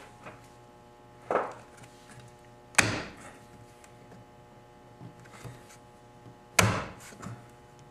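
Three separate knocks on a hard surface: a short dull thud about a second and a half in, then two sharp knocks, the last near the end, each ringing out briefly.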